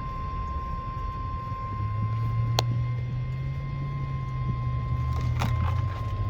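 NOAA Weather Radio 1050 Hz warning alarm tone: one steady high-pitched tone, the signal that a warning broadcast follows, over a low steady rumble. A faint click comes about two and a half seconds in.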